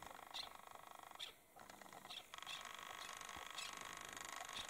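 Faint short high chirps, several a second and irregular, from a covey of chukar partridges feeding on scree, over a faint steady background hum.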